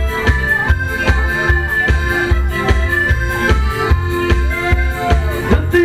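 Live electronic keyboard dance music played through loudspeakers, with a steady beat, a strong bass line and held melody notes.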